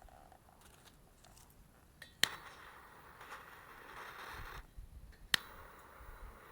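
Two sharp clicks about three seconds apart, each followed by a steady hiss: a gas lighter or torch sparked and burning. The first hiss lasts a couple of seconds and cuts off; the second carries on.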